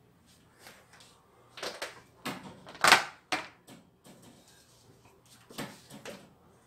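Kitchen handling noises: a few irregular knocks and short scrapes as a pot is moved away and set down, the loudest about three seconds in.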